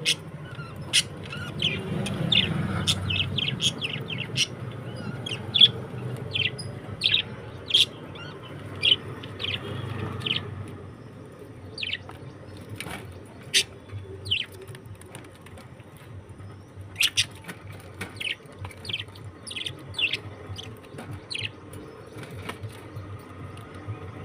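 Pet budgerigars chirping: many short, sharp chirps scattered through, over a low rustling that is strongest in the first half and fades after about eleven seconds.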